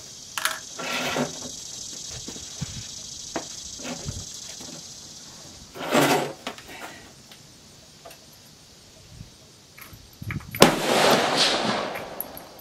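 Knocks and scrapes from a shooter moving about at a concrete shooting bench, sitting down and handling a rifle and cartridge box, over a steady high buzz in the first half. About ten seconds in there is a louder sudden noise that rings on for over a second as it fades.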